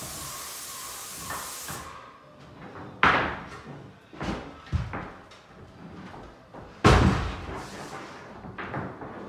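Airless paint spray gun hissing steadily, cutting off sharply about two seconds in as the trigger is released. A series of knocks and thumps follows as the painter steps down an aluminium stepladder and moves about, with sharp knocks about three seconds in and the loudest thump about seven seconds in.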